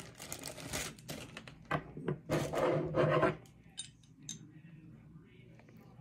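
Packaging and small parts being handled: rubbing and scraping, then scattered light clicks and clinks.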